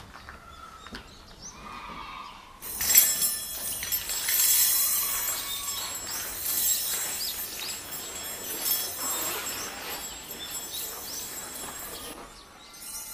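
Hanging stainless steel chopsticks clinking and ringing against one another as they are stirred by hand, a dense shimmer of high metallic chimes that starts suddenly about two and a half seconds in. A few bird chirps come before it.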